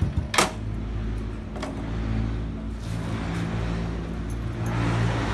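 Small single-cylinder Honda motorcycle engine through an aftermarket SC Project exhaust. A rev falls away at the start, with one sharp crack about half a second in. The engine then idles steadily and begins to pick up again near the end.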